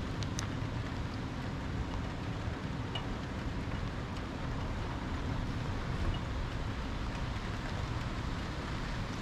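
Rain and wind during a thunderstorm: a steady noise, with a light tick under a second in and another about three seconds in.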